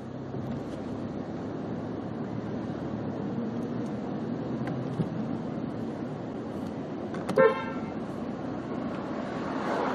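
Steady street traffic noise, with a single short car horn toot about seven seconds in.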